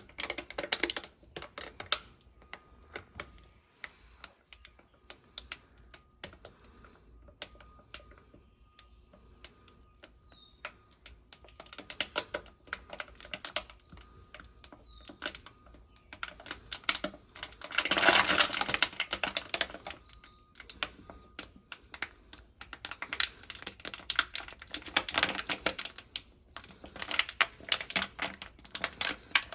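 Thin plastic water bottle crackling and crinkling in runs of sharp clicks as it is squeezed to push motor oil out through a hole in its cap. The loudest burst comes about two-thirds of the way through.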